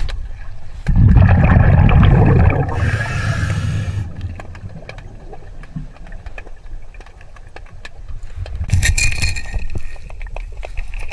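Diver breathing through a scuba regulator underwater: a loud rumble of exhaled bubbles, then the hiss of a breath drawn in, with another hissing inhalation later on.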